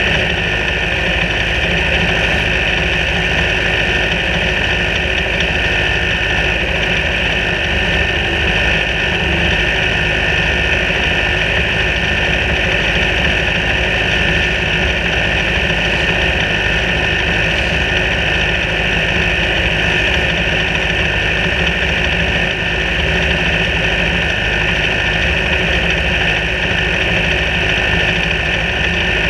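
Racing car engines idling steadily on the grid, with no revving.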